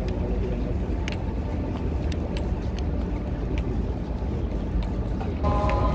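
Low, steady rumbling outdoor background noise with a few faint clicks. Near the end a set of steady held tones comes in.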